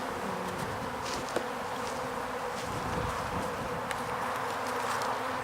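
Honeybees buzzing steadily from an opened hive, a few faint clicks over the hum.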